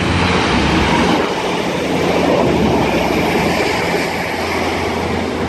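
Diesel multiple-unit train running through the station: engine hum and the rumble of wheels on the rails, loudest a couple of seconds in.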